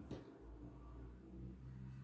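Near silence: quiet room tone with a faint, steady low hum, and one soft tick at the very start.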